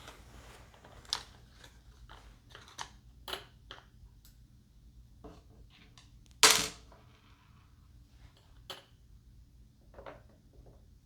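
Clicks and light knocks of plastic and foam model-plane parts being handled and fitted, with one loud sharp snap or clack about six and a half seconds in.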